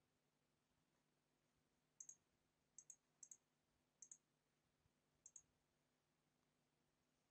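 Five faint computer mouse clicks between about two and five and a half seconds in, each a quick double tick of the button being pressed and released, over near silence with a faint low hum.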